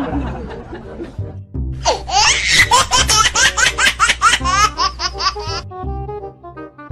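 High-pitched rapid laughter, a run of quick pulses, starts about a second and a half in over background music and stops sharply near the end. The music carries on alone after it.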